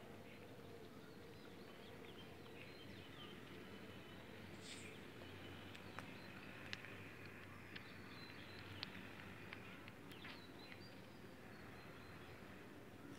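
Near silence: faint outdoor background hiss with distant birds chirping now and then, and a few light clicks in the middle.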